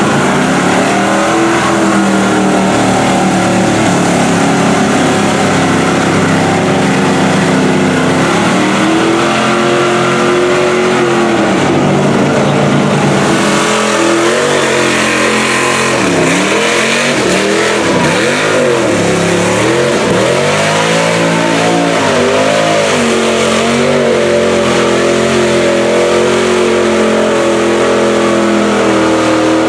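Lifted Chevy mud trucks on oversized tires running wide open through deep mud, engines loud and revving hard. About halfway through, the revs swing up and down several times in quick succession as the tires spin and grab.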